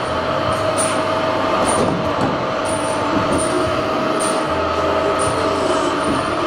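HS 76 CNC hydraulic tube bender running through a bend on a round steel tube: a steady mechanical hum with a steady whine, and short high hisses repeating about once or twice a second. A deeper hum comes in for about a second past the middle.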